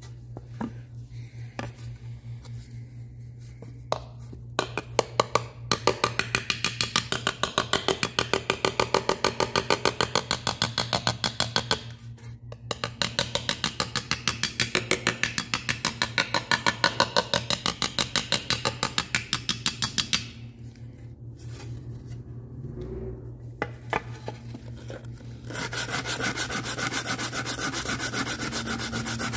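Small hammer tapping rapidly and evenly on an aluminum seat molding to raise its low spots, in two long runs with a short break between. Near the end, hand sanding of the aluminum with a sanding block starts as a steady rasp.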